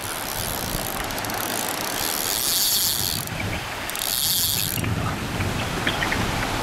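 Fishing reel's ratchet buzzing as line is pulled off the spool by a kayak taking the bait out, in two runs about two and four seconds in. Small waves wash on the shore underneath.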